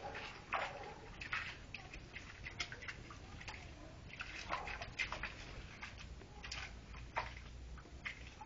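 A dog walking through shallow pool water, its paws splashing and sloshing in an uneven patter.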